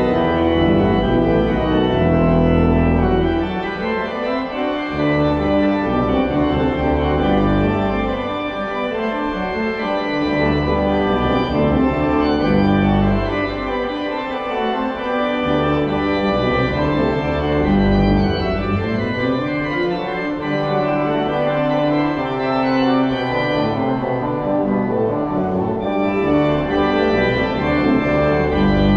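Church organ playing a postlude: full sustained chords over a moving bass line, the closing voluntary after the benediction.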